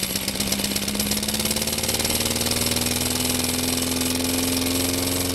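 Walk-behind lawn mower engine running on gasoline vapor drawn from a bubbler through a tube in place of its carburetor, just after being pull-started, its speed rising slowly and steadily.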